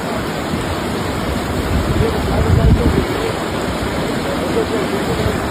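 A steady rush of water, swelling with a low rumble about two and a half seconds in.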